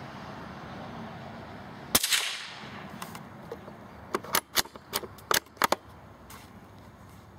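A single gunshot at a squirrel, one sharp crack about two seconds in with a short ringing tail. It is followed a couple of seconds later by a quick run of six or seven smaller sharp clicks.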